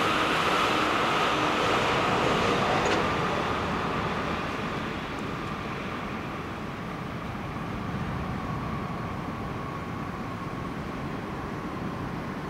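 Passing vehicle noise, loudest at first and fading after about three seconds, leaving steady traffic noise.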